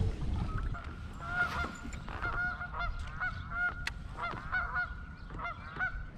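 Geese honking: a long run of many short, repeated calls from about half a second in until near the end, over a low wind rumble on the microphone.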